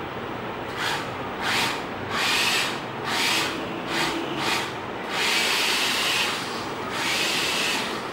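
Small electric motors whirring in short bursts, starting and stopping about eight times, some brief and some over a second long, over a steady background hum.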